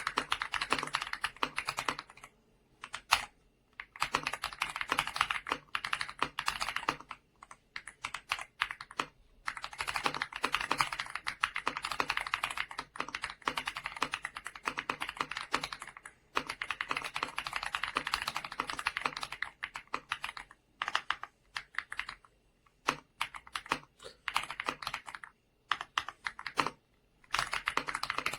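Typing on an AJAZZ x Attack Shark X85, a 75% gasket-mount mechanical keyboard with white switches and PBT keycaps. The keystrokes come in fast runs broken every few seconds by short pauses.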